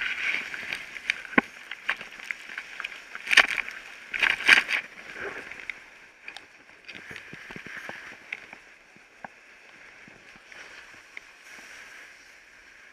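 A snowboarder's board and body scraping and sliding over packed snow during an uncontrolled fall, with sharp scrapes and knocks. The loudest come about three and a half and four and a half seconds in. It then settles into a softer, steady hissing slide on his back.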